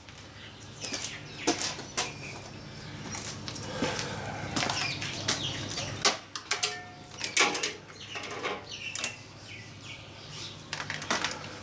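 Hands handling motorcycle wiring and its plastic covering: irregular rustling, light clicks and knocks, with a couple of brief squeaks about seven seconds in.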